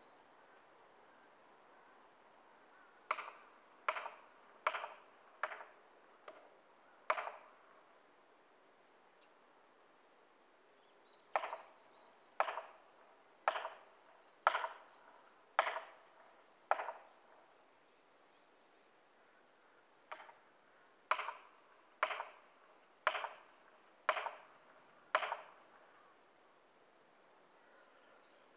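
Felling wedges being driven into the cut of a standing tree with hammer blows. The blows come in three series of five or six, about one a second, each a sharp knock, because the tree's hinge is too tough to let it tip. A steady, thin, high insect drone runs underneath.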